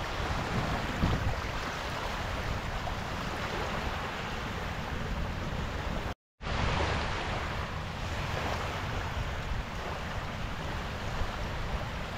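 Choppy river waves washing against the shore, a steady rushing noise, with wind buffeting the microphone. The sound cuts out completely for a moment about six seconds in.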